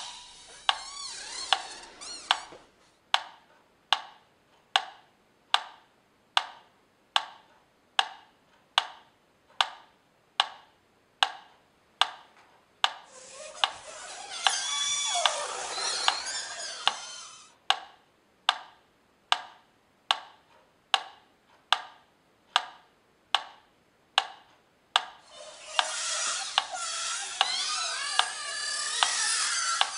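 Mechanical pyramid metronome ticking at a steady beat, roughly five sharp ticks every three seconds. Three times a hissing, warbling noise swells up over the ticking and lasts a few seconds: at the start, in the middle and near the end.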